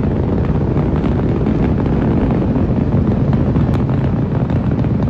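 Rocket engines firing during launch: a loud, steady, deep rumble.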